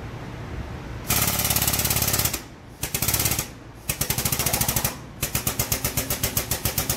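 Pneumatic air hammer rattling in four bursts of rapid blows against a drive shaft held in a shop press, driving off a bearing stuck on the shaft under about 20 tons of press load. The longest burst comes near the end.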